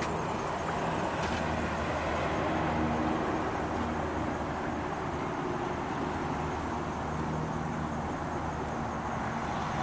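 Background music of low held notes that change every half second or so, over a steady rushing noise.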